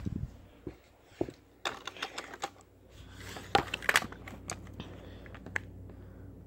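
Irregular clicks and clacks of plastic toy engines being handled and moved about, with scattered sharp taps, some in quick clusters.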